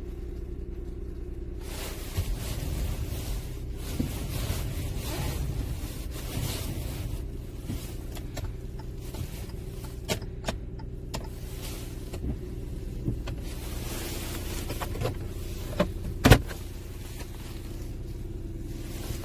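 Hyundai Tucson engine idling, a steady low hum heard from inside the cabin. Several short sharp clicks break over it as the steering-column stalk and dashboard switches are worked, the loudest about three-quarters of the way through.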